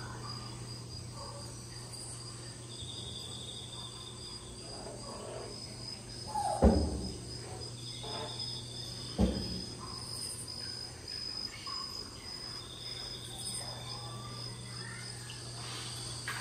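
Short insect trills repeating about every five seconds over a steady low hum, with two sudden thumps about two and a half seconds apart near the middle; the thumps are the loudest sounds.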